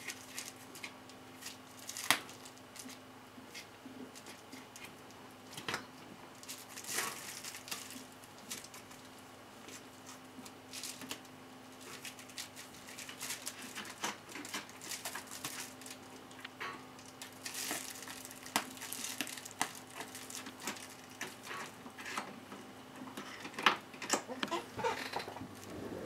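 Kitten's paws scrabbling and tapping among cables, a bubble-wrap sheet and a CD on a desk: scattered light taps, clicks and crinkles, with a sharp click about two seconds in and another near the end. A faint steady hum runs underneath.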